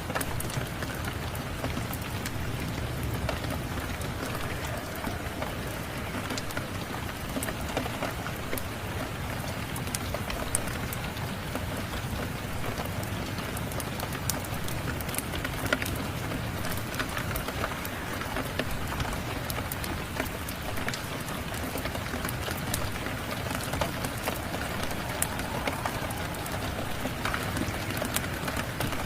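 Steady rain with scattered sharp pops and crackles of a wood fire.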